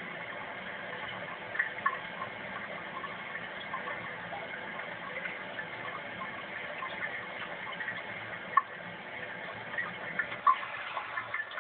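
Water running steadily into a toilet bowl, a continuous trickling rush with a few sharper splashes or drips now and then.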